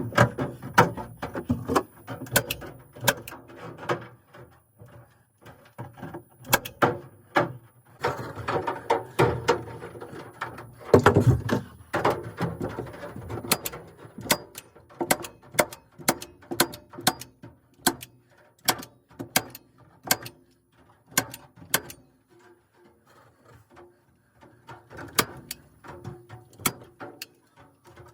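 Sharp tool clicks and knocks from wire mesh being fastened over a window opening. They come in quick clusters at first, then settle into an even run of about one a second in the middle, with a few more near the end.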